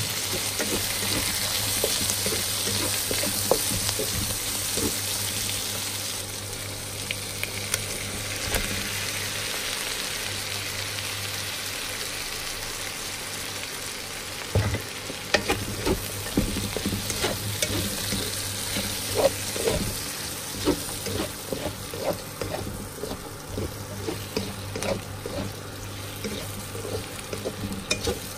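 Octopus and vegetables sizzling in a hot pan, the hiss strongest in the first few seconds. From about halfway on, a wooden spatula scrapes and knocks against the pan again and again as the stir-fry is turned.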